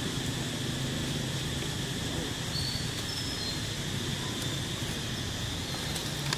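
Steady outdoor ambience: a constant high insect drone over a low rumbling hum, with one short high chirp about halfway through.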